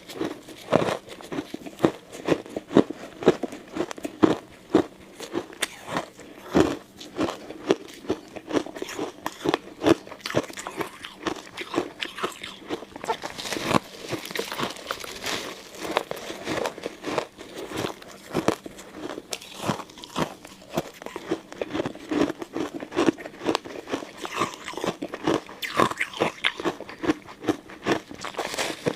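Ice cubes being bitten and chewed close to the microphone: a dense, uneven run of sharp crunches and cracks, several a second.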